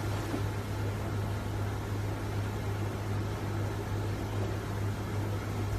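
A steady low machine hum over an even hiss, unchanging throughout, like a running appliance motor.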